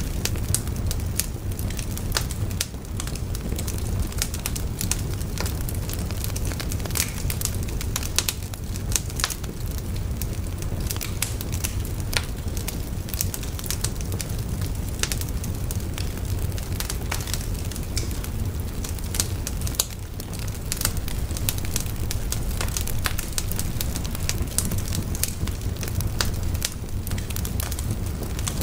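Wood bonfire burning, with frequent sharp crackles and pops over a steady low rumble.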